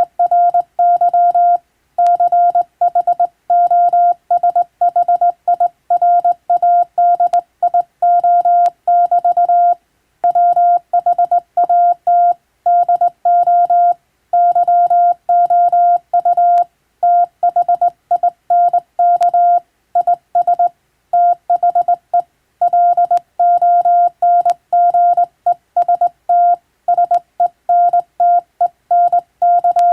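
Hand-keyed Morse code (CW): a single steady beep switched on and off in quick dots and dashes, with short pauses between words.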